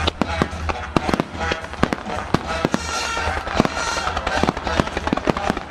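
Fireworks finale barrage: shells and ground-level fan bursts going off in a dense, rapid run of sharp bangs and crackles.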